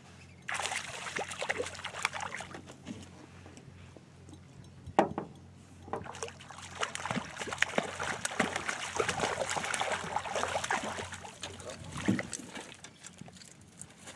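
Hooked fish splashing at the surface beside a small boat as it is played and netted, in two spells of splashing. A single sharp knock comes about five seconds in and another thump near the end.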